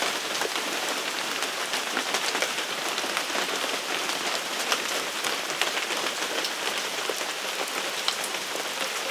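Steady rain falling: a constant hiss scattered with fine drop ticks.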